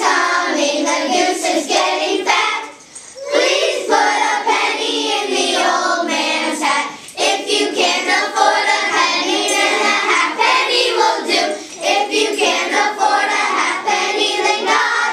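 A group of children singing together, in phrases with short breaks between them.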